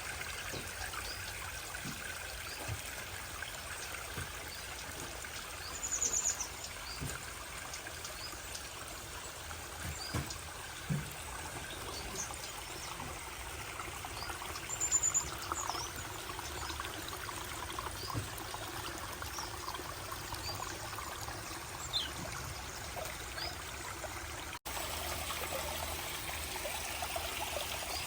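Water running and trickling over rocks in a pondless garden stream and waterfall, a steady wash, with a few short high chirps from small aviary birds about six seconds in and again around fifteen seconds.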